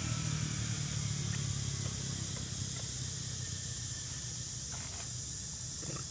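Steady high hiss of outdoor background noise, with a low rumble during the first two seconds and a few faint clicks near the end; no monkey calls are heard.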